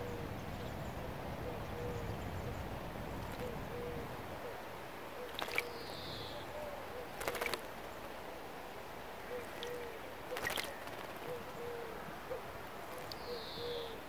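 A small bird splashing as it bathes in a shallow birdbath, with short splashes about five, seven and ten seconds in. Behind it a low hoot repeats about once a second, and a high falling bird call sounds twice.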